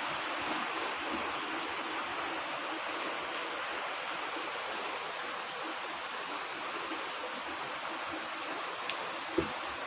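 Steady rushing of flowing water from a stream, with one brief, short pitched sound near the end.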